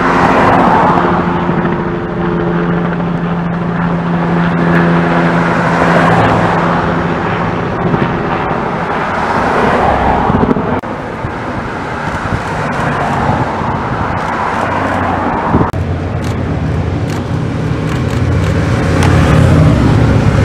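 Street traffic: a car passes at the start and the sound of vehicles swells and fades a few times. From about three-quarters of the way through, the low, pulsing engine rumble of a group of police motorcycles grows louder as they approach.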